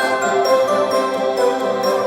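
Instrumental Christmas background music: sustained chords with high, bell-like tinkling notes over them.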